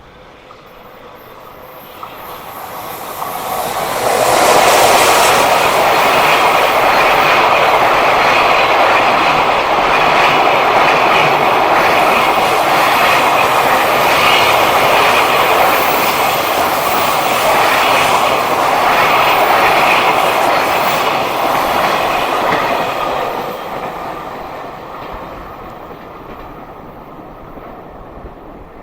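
A freight train passing close by. Its rumble swells in over a few seconds, the wheels run loudly over the rails as the wagons go by for about twenty seconds, and then it fades away.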